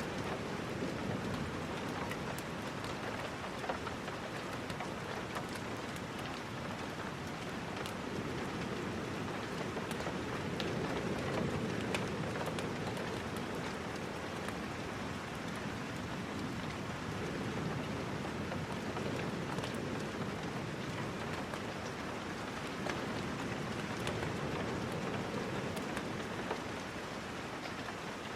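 Steady rain falling, with scattered sharp ticks and a low rumble that swells and fades every few seconds.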